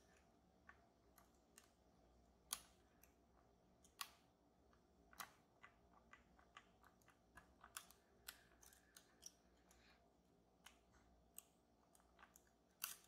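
Faint, irregular light metallic clicks and ticks from lock picks working the sliders of an EVVA Dual high-security lock. Several louder clicks stand out, one near the end.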